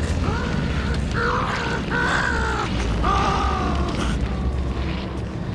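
Suspenseful background music: a series of held, gently gliding high notes over a deep, steady low rumble.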